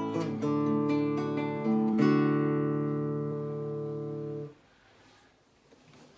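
Acoustic guitar music, overdubbed guitar parts playing together, ending on a final chord struck about two seconds in that rings on and cuts off suddenly about halfway through, followed by faint room sound.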